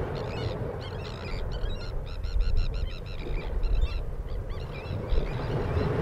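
Birds calling outdoors: a series of short, high, arching notes, coming fastest about two to three seconds in, over a low rumble that swells now and then.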